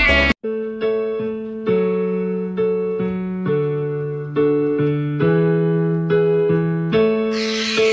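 Background piano music: slow sustained chords changing about once a second, after loud dance music cuts off abruptly at the very start. A hissing noise joins the music near the end.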